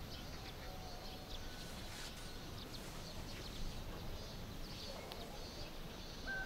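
Faint outdoor rural background with brief, faint bird chirps over a steady low hiss.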